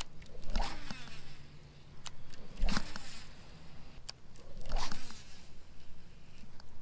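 Baitcasting reel cranked in three short bursts, its gears giving a fast zipping buzz as line winds in, with a few sharp single clicks in between.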